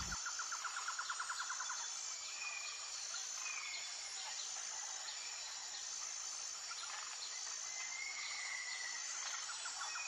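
Outdoor birds-and-insects ambience: an insect chirring in a fast pulsing trill for the first couple of seconds and again near the end, a thin high repeating insect buzz throughout, and a few short bird chirps.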